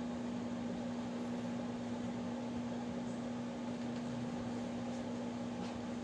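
Harbor Breeze Armitage II ceiling fan running steadily: a constant motor hum holding one pitch over the even rush of the turning blades.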